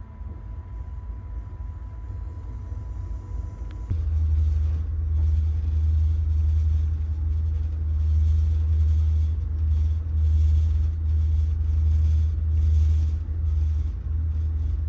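Low rumble of the Coast Starlight passenger train running on the rails. About four seconds in it abruptly becomes much louder and deeper, then swells and dips unevenly.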